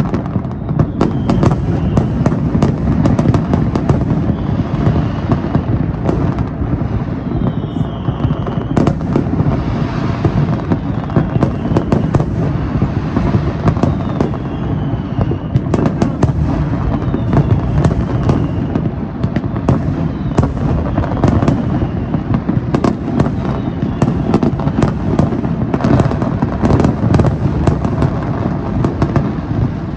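Dense, continuous barrage of aerial fireworks: rapid overlapping bangs and crackling over a steady low rumble, with a few faint falling whistles now and then.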